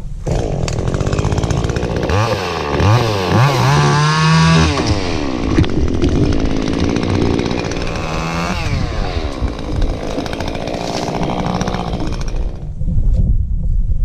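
Chainsaw running and revving, its pitch rising and falling several times, then shutting off near the end.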